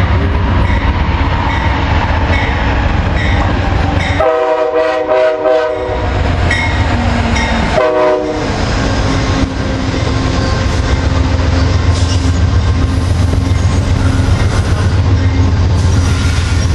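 NJ Transit commuter train passing, led by a multilevel cab car. Its horn sounds one long blast, then a short one about two seconds later as the front goes by, over a steady rumble of wheels on rail that continues as the double-deck coaches pass.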